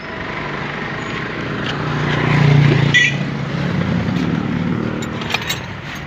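Chevrolet Trailblazer running on a test drive, engine and road noise swelling about two to three seconds in, then easing. It is being driven to check whether it still stalls after its dirty relays were cleaned to cure a no-crank, no-start fault.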